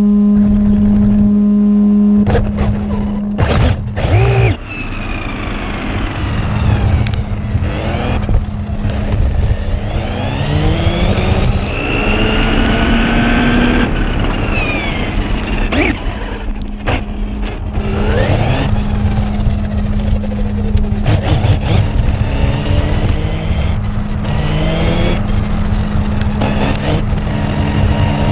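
Electric RC car driven hard: its motor whine rises and falls again and again as it speeds up, slows and passes, over rough tyre and road rumble. A few sharp knocks come in the first few seconds and again past the middle, and a steady low hum runs underneath.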